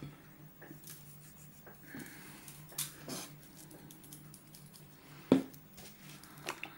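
Scattered light taps and rustles of fish pieces being handled and set into an aluminium foil tray, with one sharper knock about five seconds in. A low steady hum runs underneath.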